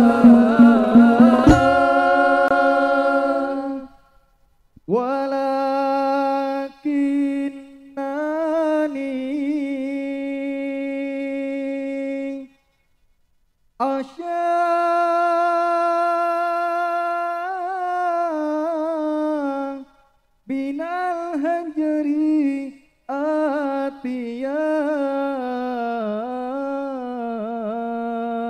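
Hadroh frame drums stop about a second in. Then a solo male voice sings a sholawat unaccompanied, in long held phrases with ornamented, wavering pitch and short pauses between them.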